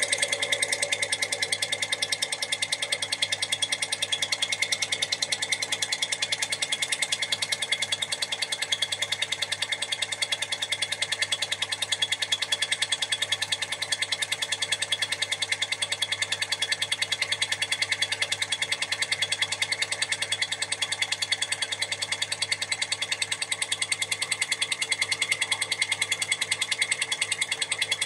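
Cummins PT injector flow test bench running its automatic test: the bench's drive runs steadily with a rapid, even knocking as the clamped injector is cycled.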